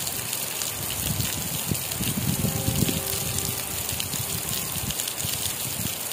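Heavy tropical downpour: a steady, even hiss of rain. A low rumble swells underneath it about two to three seconds in.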